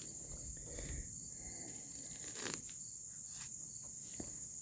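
Steady high-pitched chorus of insects, with a few faint knocks, the clearest about two and a half seconds in.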